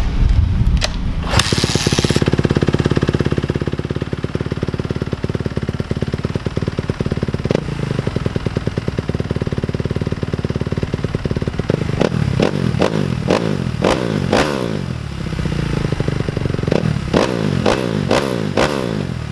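2014 Kawasaki KX250F's single-cylinder four-stroke engine through an FMF Factory 4.1 RCT slip-on exhaust, just started: a rev in the first couple of seconds, a steady idle, then two runs of quick throttle blips in the second half.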